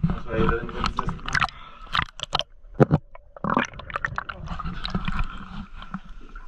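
A jumble of sharp clicks, knocks, scrapes and rustling from people squeezing sideways through a narrow cave passage, with handling noise on the camera.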